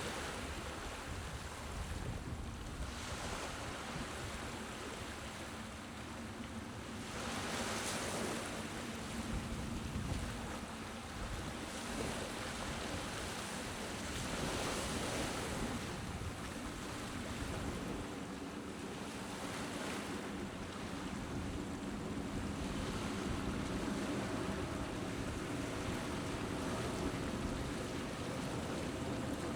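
Small, gentle sea waves lapping on a shore, each swell of wash rising and fading every few seconds over a steady background hiss.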